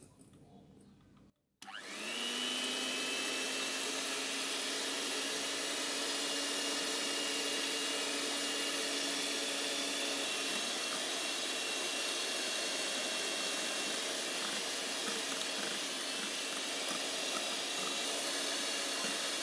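Electric hand mixer switching on about one and a half seconds in, spinning up to a steady whine and running at speed, its beaters whisking egg whites and sugar into foam in a glass bowl.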